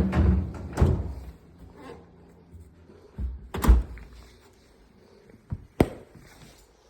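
Several thumps and knocks: a cluster of heavy thuds in the first second, then single sharp knocks about three and a half and six seconds in.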